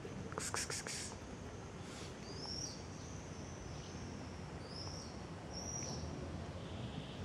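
Several short, high, slightly falling bird chirps over a steady low outdoor background, with a quick run of clicks near the start.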